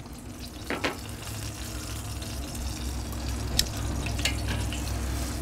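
Chicken thighs sizzling on the grate of a charcoal kettle grill running over 400 degrees, a steady hiss, with a couple of light clicks from metal tongs.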